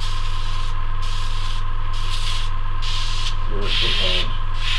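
Dual-action airbrush spraying in short bursts of air hiss, about one a second, as the trigger is worked to lay fine test lines, over the steady hum of its air compressor.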